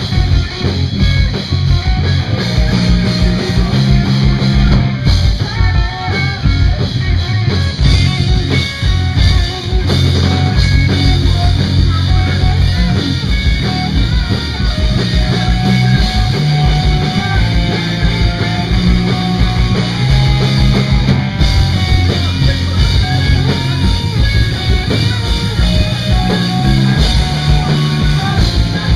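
Rock band playing live: electric guitars, bass and drum kit, with a male voice singing over them.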